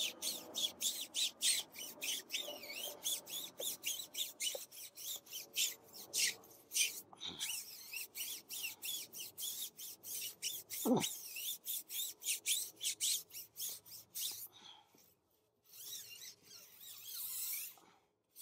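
A soft-bristled tire brush scrubbing a car tyre's rubber in quick back-and-forth strokes, about three or four a second. The strokes stop briefly near the end, then give way to a smoother, continuous scrub.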